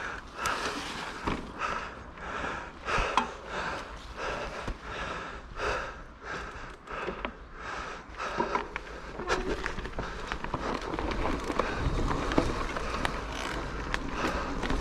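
A person panting hard, about two quick breaths a second. Towards the end the breaths fade under a steadier rumbling noise with scattered knocks.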